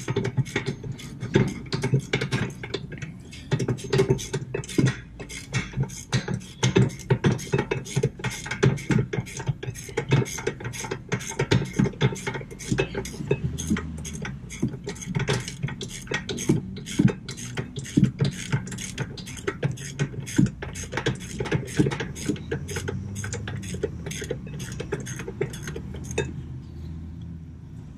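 Hand ratchet clicking rapidly and steadily as it backs out a loosened 19 mm rear brake caliper bracket bolt, the pawl ticking on each back-stroke; it stops near the end.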